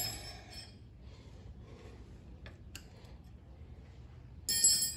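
Metal clinking with a bright ringing tone, twice: once right at the start and again, a little longer, near the end, with a few faint ticks between.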